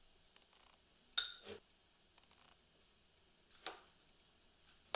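Metal spoon knocking against a ceramic bowl while flour is spooned in: three short clinks, the loudest about a second in, another near the middle and one at the end.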